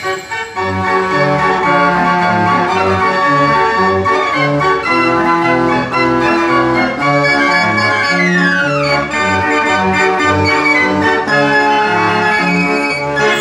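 A Ch. Marenghi & Cie fair organ playing a lively tune on its pipes in a steady rhythm, with a quick falling run of notes about two-thirds of the way through.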